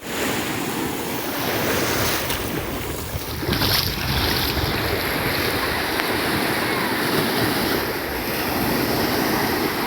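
Ocean surf washing onto a beach, with wind buffeting the microphone; one louder surge about a third of the way in.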